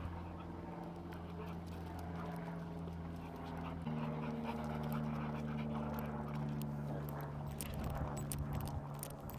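A dog panting, over a steady low hum of sustained tones that shift to a new pitch about four seconds in.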